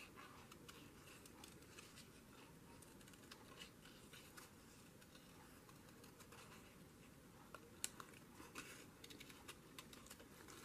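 Small craft scissors snipping paper in quiet, short, irregular cuts while fussy-cutting around a small image, with a sharper snip about eight seconds in.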